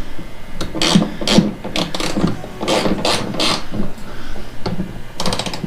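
Hand ratchet wrench clicking in short spells of strokes as a bracket bolt is turned, with rattling and scraping of the tool against metal.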